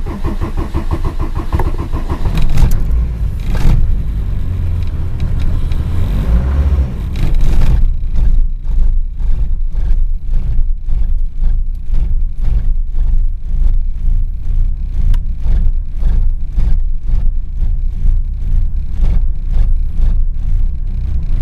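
Mercedes-Benz 190D 2.5's five-cylinder diesel cold-started below freezing on 100% waste vegetable oil. It fires the moment the key is turned and runs noisier and harsher for about the first eight seconds, then settles into a steady idle with an even pulse.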